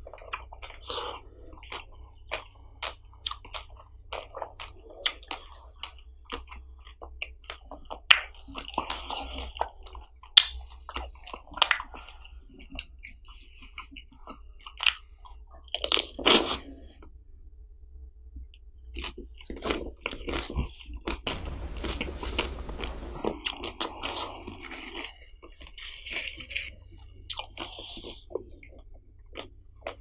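Close-miked eating of frozen ice cream bars: repeated biting and chewing with many short, sharp mouth clicks, and a louder bite about sixteen seconds in.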